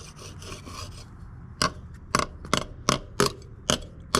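Small hand drywall saw cutting into dry deck wood: quick rasping strokes, about five a second, then after about a second short sharp knocks roughly twice a second as the tip is worked into the board.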